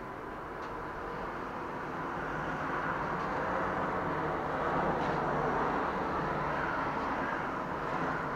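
Road traffic passing on the street below: tyre and engine noise swelling over the first few seconds and then holding steady.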